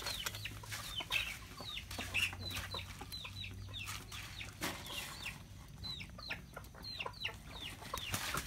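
Chickens calling nearby: many short, high, falling peeps in quick succession, with a faint low hum beneath.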